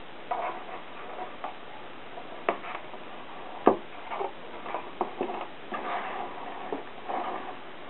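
Hands handling knotting cord: brief rustling and sliding of the cord between scattered light clicks and taps, the sharpest about two and a half and three and a half seconds in.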